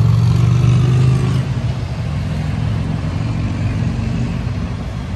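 Steady low rumble of city road traffic heard from high above the street, with a vehicle engine note standing out during the first second or so.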